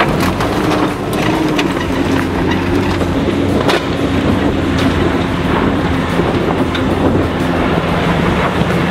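Mitsubishi Triton 4WD engine working hard up a steep, loose dirt hill climb, a steady drone with tyres spinning in the dirt and scattered sharp ticks.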